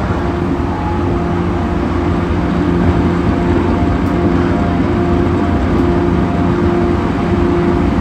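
Running noise of an E231 series 1000-subseries commuter train car at speed: a steady low rumble of wheels on rail, with a steady humming tone held at one pitch throughout. This car was recorded for its abnormal noise.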